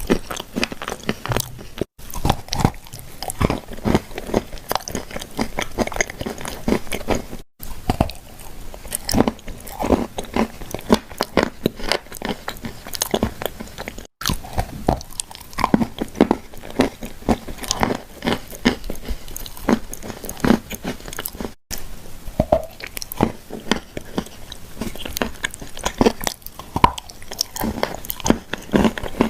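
Repeated biting and crunchy chewing of dry, crumbly clay shortbread cookies: irregular sharp crunches and crackles that go on throughout, broken by a few split-second drop-outs.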